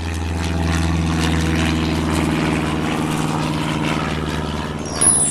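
A steady, engine-like droning hum. Near the end a bright, high chime runs downward.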